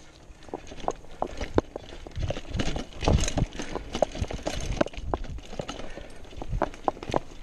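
Mountain bike rattling down a rocky dirt trail: a steady stream of irregular clicks and knocks from the bike jolting over stones, with tyres crunching on dirt and dry leaves. The clatter is loudest around the middle, with a low rumble.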